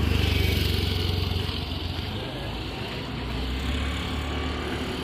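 Road traffic: a motor vehicle's engine passing close by, loudest at first and then fading to a steady hum.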